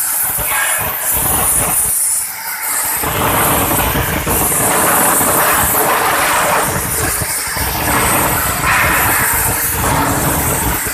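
Jasic CUT 80 air plasma cutter running, a loud rough hiss with irregular crackle and a faint steady hum underneath.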